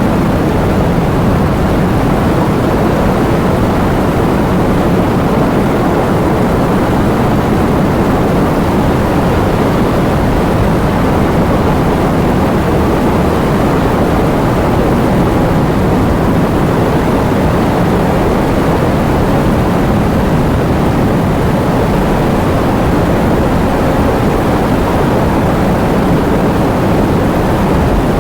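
Heavy rain falling in a steady, dense downpour, a constant low-heavy rush without distinct drops or thunder.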